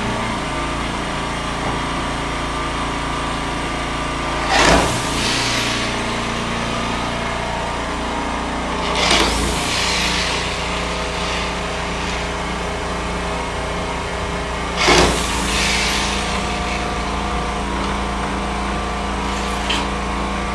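Corded electric drill driving screws into wooden floor slats in three short bursts several seconds apart, over a steady machine hum.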